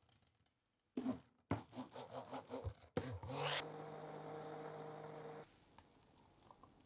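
Stick blender mixing milk in a plastic measuring jug: a few knocks and short stop-start bursts from about a second in, then the motor runs steadily for about two seconds and cuts off.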